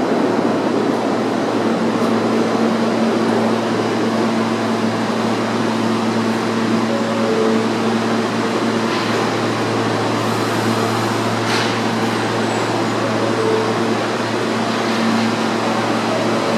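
R160A subway train standing at the platform, its air-conditioning and auxiliary equipment humming steadily with a low drone and a higher steady tone.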